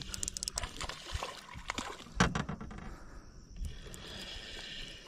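Water sloshing and splashing, with scattered clicks and knocks, as a hooked fish fights beside a fishing boat while it is reeled in.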